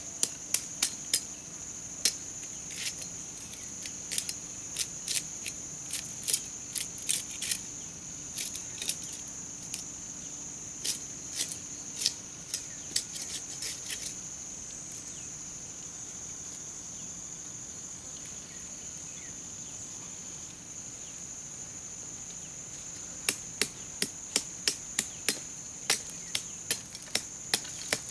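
Machete blade chopping into the soil in sharp strikes, irregular at first and then about three a second near the end, with a break of several seconds in the middle. A steady high insect drone runs underneath.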